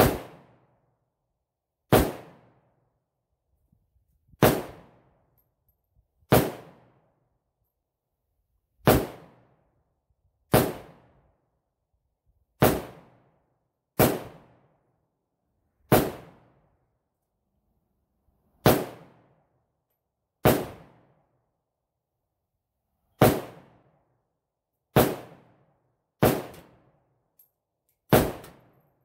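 AK-47 underfolder rifle with a Huber Concepts muzzle brake firing slow, aimed semi-automatic single shots: about fifteen sharp reports, one every two seconds or so, each trailing off briefly.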